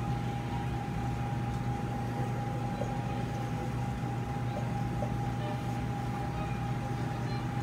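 Steady hum of operating-room equipment, with a constant high-pitched tone held over it.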